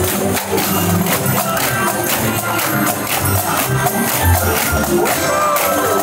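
Parade marching music with a steady drum and percussion beat.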